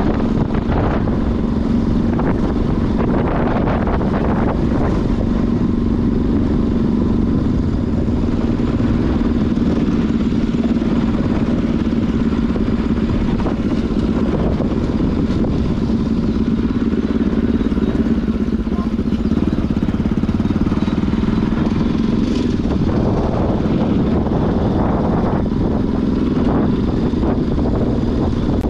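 An old motorcycle's engine running at a steady speed: one even drone over a dense low rumble.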